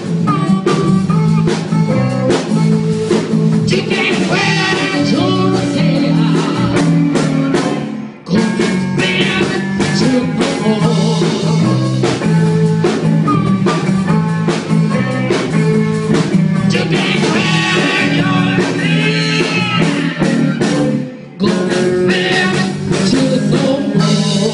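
Blues band playing live, with electric guitar and drum kit. The band stops for a moment twice, about a third of the way in and near the end, then comes back in.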